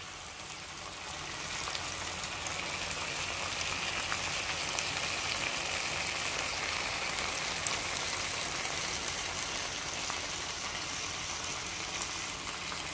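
Tomato sauce of a fish curry sizzling in a hot frying pan: a steady hiss with fine crackles, growing a little louder in the first couple of seconds.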